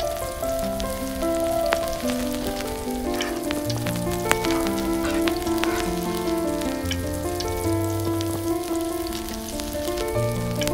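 Hot oil sizzling and crackling in a miniature clay pan over a tiny wood fire, with background music of slow, held notes playing over it.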